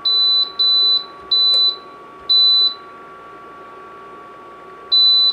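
Electric smokeless grill's control panel beeping as its temperature dial is turned: five short high beeps, four close together and one more near the end. Under them runs the steady whine of the grill's built-in fan, which sounds like a centrifuge.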